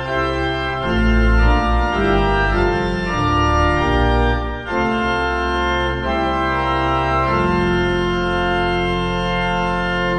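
Organ playing slow, held chords that change every second or few.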